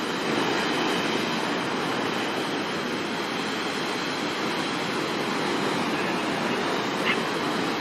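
Heavy storm surf breaking and rushing on the shore in a steady, unbroken wash of noise, with a brief sharp tick about seven seconds in.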